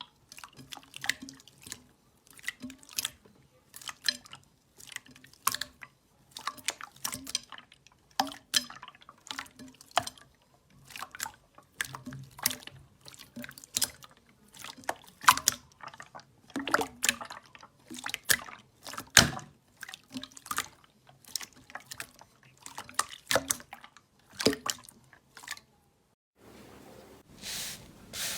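Slime being squished and pressed by hand, making a run of short wet clicks and pops, one or two a second. Near the end they stop and a brief soft hiss follows.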